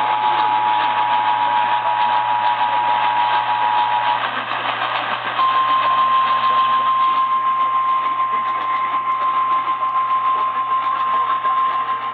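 EAS attention signal, a steady two-tone alarm (853 and 960 Hz), sounding for about four seconds over radio hiss. After a short gap, the single steady 1050 Hz NOAA Weather Radio warning alarm tone starts, marking the start of a new warning broadcast.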